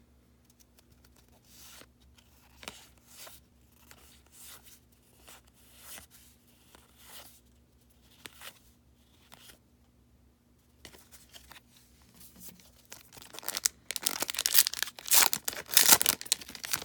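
Faint handling and sliding of trading cards, then from about 13 seconds in a loud crinkling tear as a baseball card pack's wrapper is ripped open.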